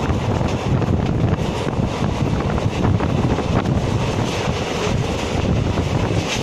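Wind buffeting the microphone: a steady, rumbling rush with gusty fluctuations and brief crackles.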